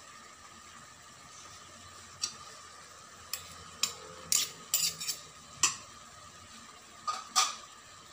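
Metal spoon clinking against the aluminium inner pot of a rice cooker as spice is added to raw chicken: about eight short, sharp clinks in uneven succession, starting about two seconds in.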